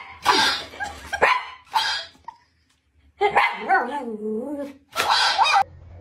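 Shiba Inu barking in short loud bursts, with a drawn-out wavering call in the middle and another burst of barks near the end.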